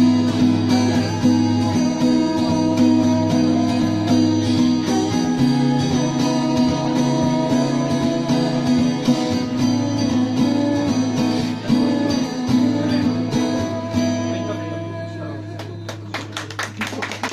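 Live acoustic guitar music with a sustained backing accompaniment, the closing bars of a song, gradually fading out over the last few seconds, with a few sharp clicks near the end.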